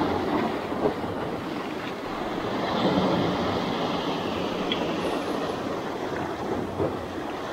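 Motorboat under way: a steady engine drone mixed with water rushing along the hull.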